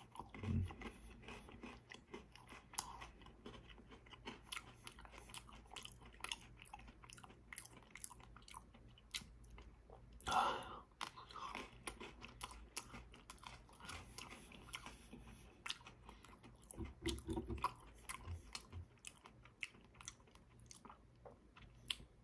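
Close-up chewing and biting of chilled cookies-and-cream Pocky biscuit sticks: many small, crisp crunches scattered irregularly, with a few louder bites.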